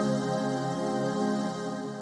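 Background music: soft, sustained new-age style synth tones.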